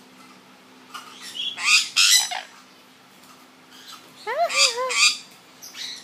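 Yellow-headed amazon parrot calling: harsh squawks about a second and a half in, then a pitched, wavering call that rises and bobs up and down a little after four seconds.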